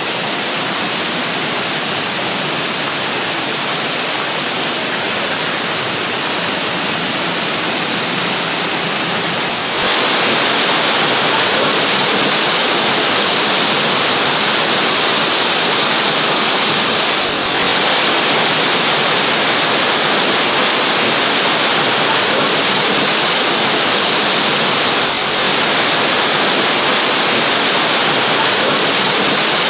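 Waterfall: a loud, steady rush of falling water, a little louder from about ten seconds in, with two brief dips later on.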